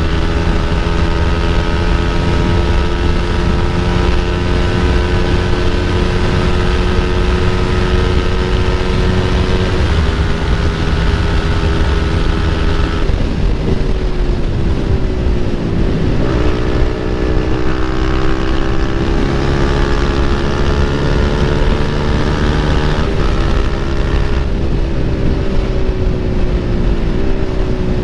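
Motorcycle engine running at speed through an aftermarket Akrapovic exhaust, with a low rush of wind. Its note holds steady, then drops sharply and climbs again three times, about ten seconds in, about halfway through and near the end.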